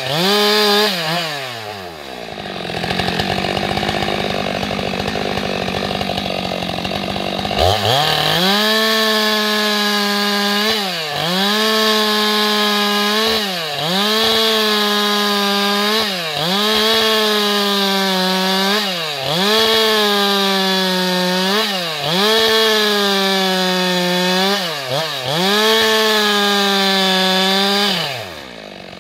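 Stihl MS 462 two-stroke chainsaw ripping a log lengthwise. The revs fall away at the start and run low for several seconds, then climb sharply back to full throttle. In the cut the pitch dips and recovers about every two seconds, then drops again just before the end.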